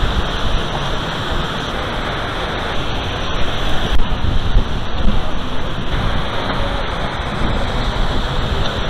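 Steady rush of falling water from a mini-golf course's artificial waterfall, with a few brief louder bumps about four and five seconds in.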